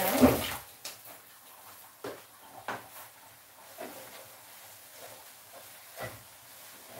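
A brief loud burst of kitchen noise at the sink right at the start, then scattered light knocks and taps as a wooden spoon stirs cabbage and carrots in a pot on the cooker.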